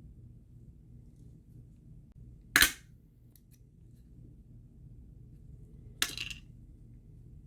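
Two sharp snaps about three and a half seconds apart, the second trailing off briefly, over a low steady hum: parts of a GFCI outlet cracking or snapping loose as it is taken apart.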